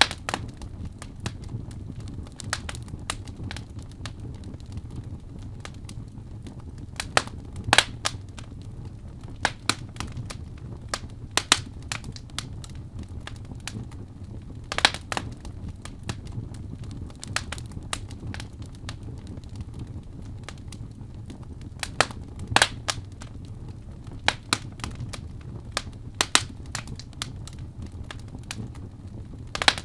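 Wood fire burning in a fireplace: irregular sharp crackles and pops, a few of them louder, over a low steady rumble of the flames.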